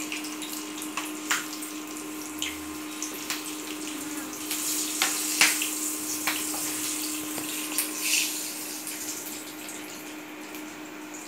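Slit green chillies sizzling in hot oil in a nonstick frying pan: a steady hiss that swells in the middle, with scattered clicks and scrapes of a wooden spatula against the pan. A steady hum from the induction cooktop runs underneath.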